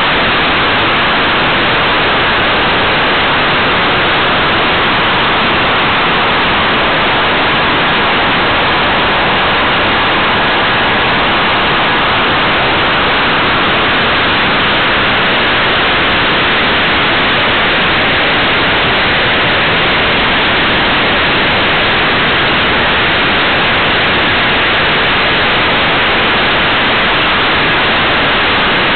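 Steady, loud rushing hiss picked up by the small onboard camera of a radio-controlled model plane in flight: air rushing past the camera's microphone, with no clear engine or motor note.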